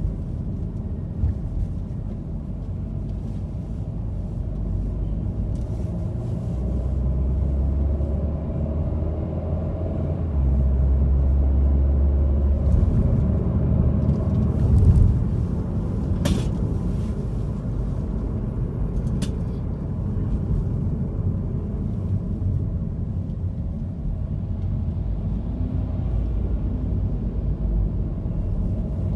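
Steady low rumble of a car driving on city streets, louder for several seconds in the middle. A sharp click comes a little past halfway, and a fainter one about three seconds later.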